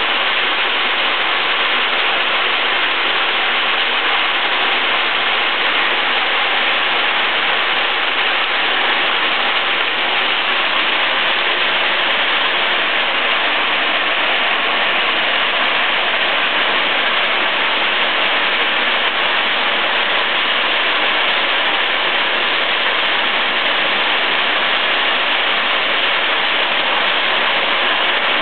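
Bottle cap and label removing machine running with plastic bottles passing through it: a loud, steady, dense rushing noise that does not change.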